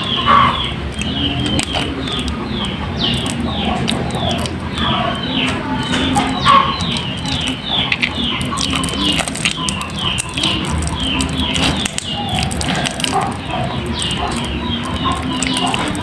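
Birds peeping without pause: short high calls that each drop quickly in pitch, about three a second, over a low steady hum.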